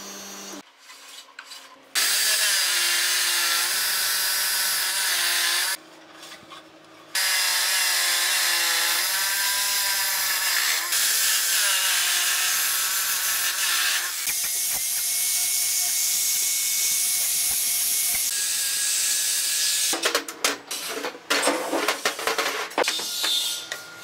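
Abrasive cut-off saw's disc grinding through square metal tubing: a harsh, steady scraping noise with a whine that wavers as the disc bites. There is a short pause about six seconds in. Near the end, the cut metal tubes clatter in irregular knocks as they are set out on a steel table.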